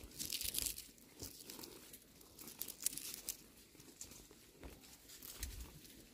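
Dry rosary pea seed pods crackling and crinkling as fingers crush them open in the palm, with light rustling of twigs. The crackles are faint and come in a few short spells.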